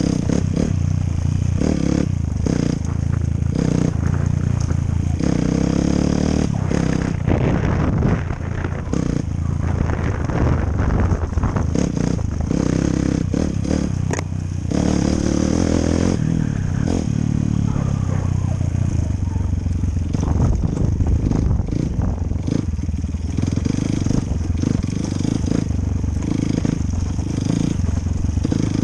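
Enduro motorcycle engine running under changing throttle while riding, with frequent clatter and knocks from the bike over rough ground.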